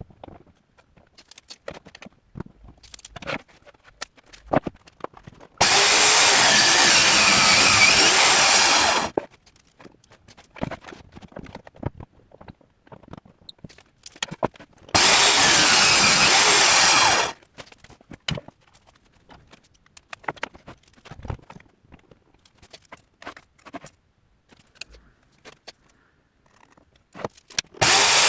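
A power tool run in two bursts of a few seconds each, one about five seconds in and one about fifteen seconds in, each starting and stopping abruptly. Between them come scattered knocks and clatter of handling tools and workpieces.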